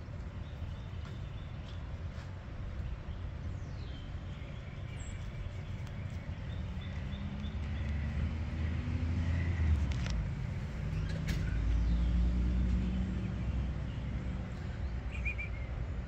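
A motor vehicle passing: a low engine sound that grows louder to a peak about ten to twelve seconds in, then fades. Faint bird chirps sound above it.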